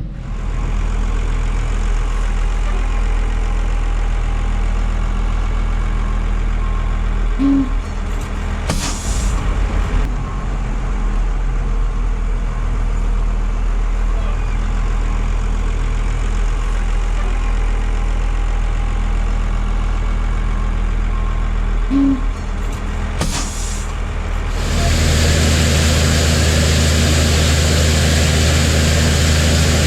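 Heavy diesel farm-machine engine running steadily, with two brief bursts of noise along the way. About 25 seconds in it steps up to a louder, brighter note and holds there, as the machine is throttled up to get moving.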